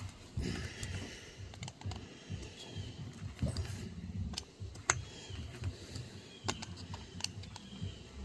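Irregular small clicks and taps of hand tools and metal parts being handled, as screws on an RC truck's motor mount are snugged down while setting gear backlash.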